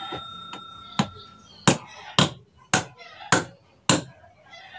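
Six sharp hammer knocks at an even pace, about two a second, starting about a second in.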